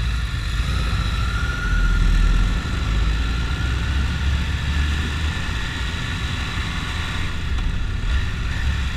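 Motorcycle engine running steadily while cruising along in traffic, with wind rumbling on the microphone.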